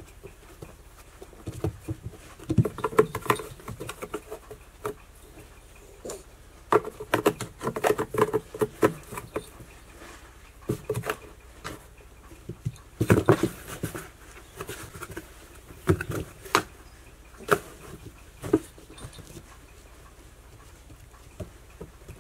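Cat paws knocking and scratching on a cardboard box, in bursts of quick taps and scrabbling with short pauses between. The loudest burst comes about 13 seconds in.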